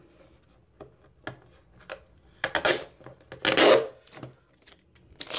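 Cardboard and clear plastic retail packaging being handled and pulled open by hand: a few light clicks, then several short scraping rustles, the loudest about three and a half seconds in.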